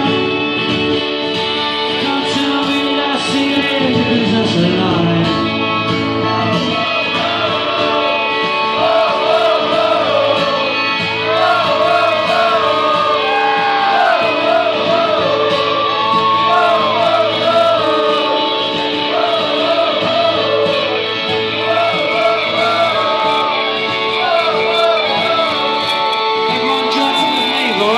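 Live band music: acoustic and electric guitars playing, with a sung melody over them.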